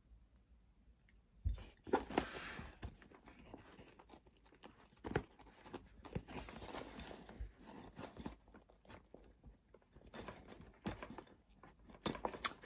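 Close handling noise of a keychain being threaded onto a backpack: rustling with irregular small clicks and taps, starting about a second and a half in.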